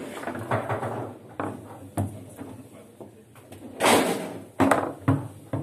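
Foosball table in play: sharp knocks and clacks as the ball is struck by the players' plastic figures and hits the table, the loudest about four seconds in, followed by a quick run of clacks near the end.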